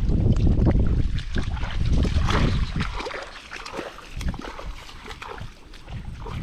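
Footsteps sloshing and splashing through shallow muddy water, over a low rumble of wind on the microphone that eases off about three seconds in, leaving scattered splashes.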